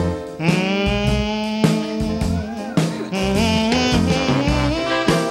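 Band music between the sung lines of a song: held melody notes over a bass line and beat, with no singing.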